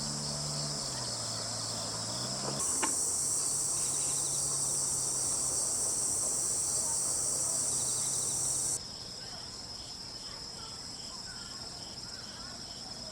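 Crickets chirping in a dense, continuous high-pitched chorus. It grows louder about two and a half seconds in and drops back suddenly near nine seconds.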